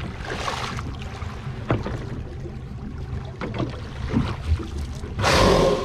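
Grey whale blowing at the surface beside the boat: a loud rushing whoosh lasting about half a second near the end. Under it, water sloshes and laps against the panga's hull with wind rumble on the microphone.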